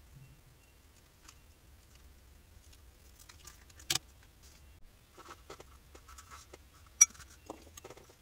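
Small handling noises of leatherwork on a cutting mat: scattered faint clicks and rustles of leather pieces being moved. There is a sharp knock about four seconds in as a snap-off utility knife is set down on the mat, and a louder, very short click about seven seconds in.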